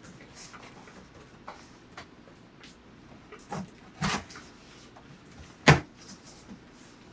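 Cardboard box of a PC case being handled and opened: scattered light knocks and scrapes, with three louder knocks between about three and a half and six seconds in.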